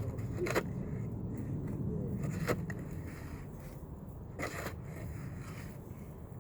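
Snow shovel scraping across the pavement in four short strokes, about two seconds apart, over a steady low rumble.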